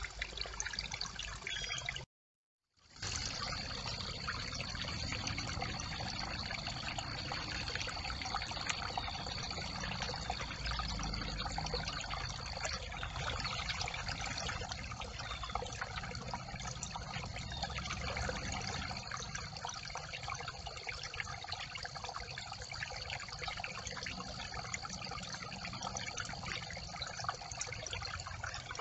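Brook water trickling and running over a beaver dam of sticks, a steady rush that cuts out for under a second about two seconds in. From then on a thin, steady high whine sits over it.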